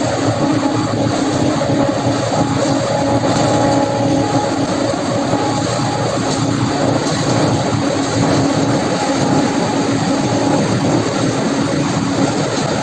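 4YZ-4T corn harvester running steadily at a constant pitch, its engine and working machinery making a loud, even mechanical noise with a steady hum.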